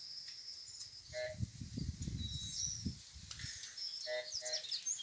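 Rural outdoor ambience with high-pitched bird chirps and calls throughout. A few short beep-like tones sound about a second in and twice near the end. A low rumble runs from about a second in to about three and a half seconds.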